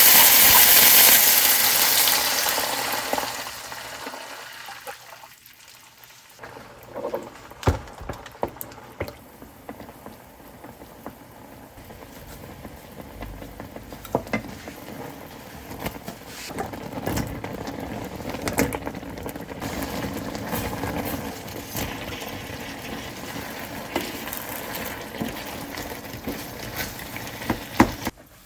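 Kitchen cooking sounds: a loud hiss that fades away over the first three or four seconds, then scattered clicks and clinks of utensils against cookware over a quiet background.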